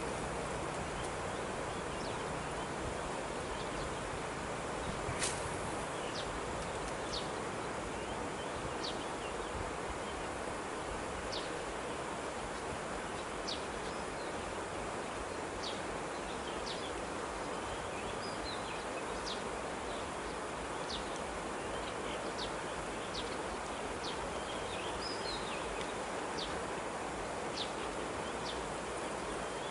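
Steady outdoor hiss with short, high chirps of small birds about once a second and a couple of brief warbling calls near the end. There is one sharper click about five seconds in.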